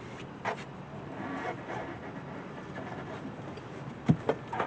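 A few light clicks and knocks of engine-bay parts and tools being handled during intake removal, one about half a second in and two close together near the end, over a low steady background.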